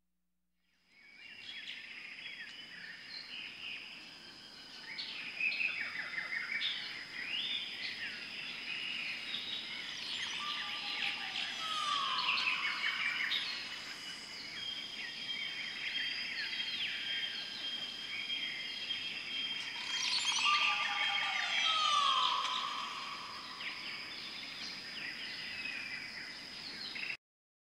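Nature ambience of many birds chirping and trilling over a steady high whine, with a falling call twice. It starts about a second in and cuts off abruptly near the end.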